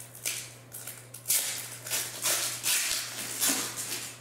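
Foil wrapper of a 1999-00 Pacific Dynagon Ice hockey card pack crinkling and tearing as it is opened, in a series of rustling bursts that are loudest in the middle, over a faint steady low hum.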